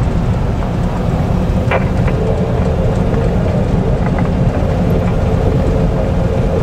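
Steady low rumble of a vehicle driving on beach sand, heard from inside the cab: engine, tyre and wind noise, with a faint steady hum joining about two seconds in.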